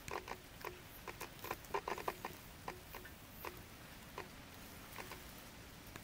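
Raindrops tapping irregularly close by, a quick flurry of taps about two seconds in, then thinning out to scattered single drips.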